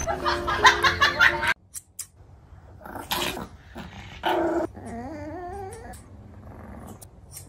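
A Pomeranian growling in short snarling bursts, then making a wavering, rising-and-falling grumbling whine. This is its protest at a nail trim.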